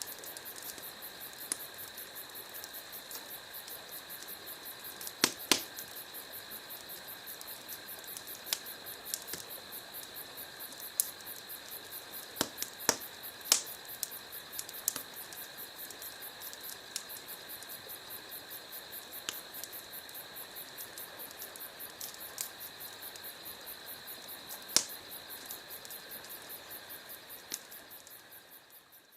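Campfire crackling, with a dozen or so sharp pops standing out, over a steady, fast-pulsing chirring of insects. The whole fades out near the end.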